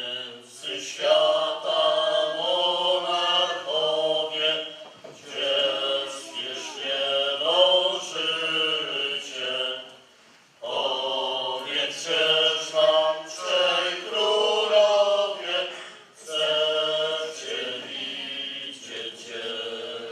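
Voices of nativity-play performers singing a Christmas carol in Polish. They sing in long phrases, with a brief pause about halfway through.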